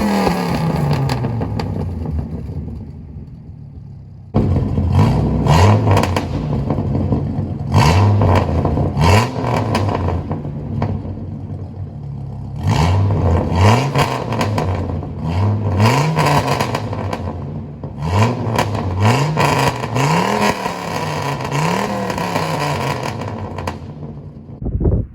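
1997 Dodge Ram 2500's 8.0-litre V10 revved in repeated blips through a custom exhaust, each rev rising and falling in pitch, with crackles and pops as the revs drop. The engine settles to a quieter run about two seconds in, then the blipping starts again loudly about four seconds in.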